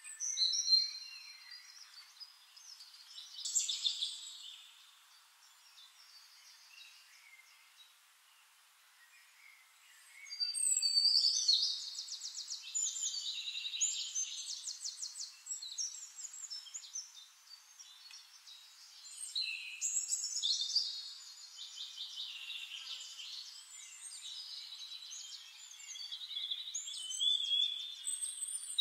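Chicken pieces frying in hot oil in a wok, sizzling and crackling in uneven waves. The sizzle is loudest a little after ten seconds in and again around twenty seconds.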